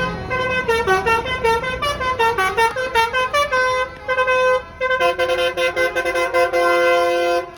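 Bus basuri musical air horn (telolet horn) playing a fast tune of short notes, then holding a long two-note chord that cuts off sharply near the end.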